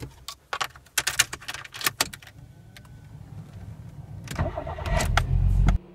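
Keys clicking and jangling at the ignition of a 1995 Nissan Almera. About four seconds in, the starter cranks the engine, growing louder for over a second before breaking off suddenly. It is a cold first start after the car has stood over the winter since October.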